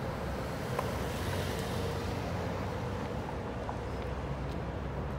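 Steady city street traffic noise: a low rumble of passing cars and buses, with a faint held tone for a second or two near the middle.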